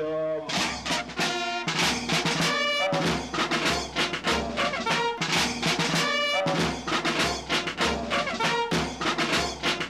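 Marching band playing: brass horns over field drums keeping a steady march beat.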